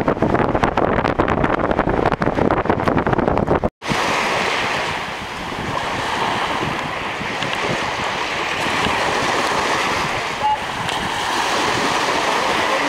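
Wind buffeting the microphone for the first four seconds, then a brief dropout and a steady wash of small waves in the shallows around the catamaran.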